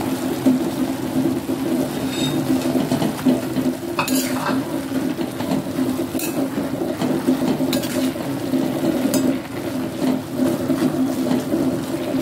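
Steel spoon stirring fenugreek leaves and crushed peanuts in a stainless steel pot, scraping and clinking against the metal several times, over a steady low hum.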